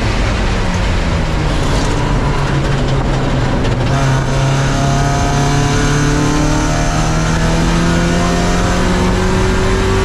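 Spec Miata's four-cylinder engine running hard under race load. After a few fairly steady seconds its pitch climbs slowly and evenly as the car accelerates through a gear, over steady road and wind noise.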